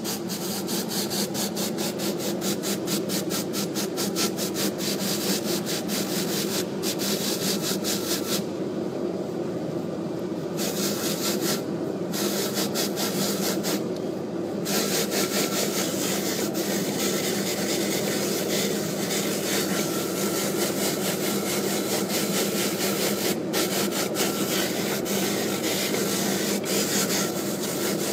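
Dental bench lathe running steadily while an acrylic denture is pressed against its spinning polishing wheel: a continuous rubbing, rasping hiss over the motor's hum. The high hiss drops away briefly twice near the middle.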